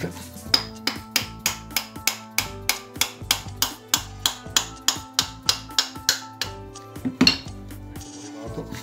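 Hammer tapping on metal in quick light strikes, about three to four a second, which stop about six and a half seconds in and are followed by one louder strike a little later. Background music plays underneath.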